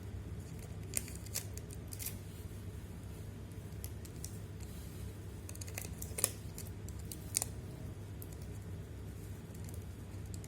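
A few scattered small clicks and taps, the sharpest about six seconds in, from handling small phone parts and tools, over a steady low hum.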